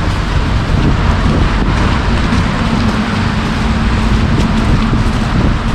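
City street traffic noise: a steady low rumble of vehicles, with an engine hum holding from about two and a half seconds in until near the end.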